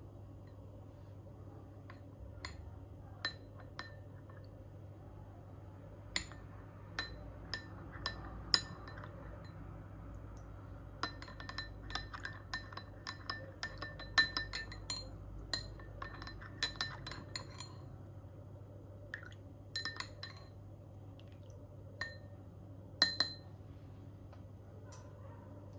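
Metal spoon clinking against a glass, the strikes ringing at the same bright pitch. The clinks come one at a time at first, then in a quick run through the middle, as when a drink is stirred, over a steady low hum.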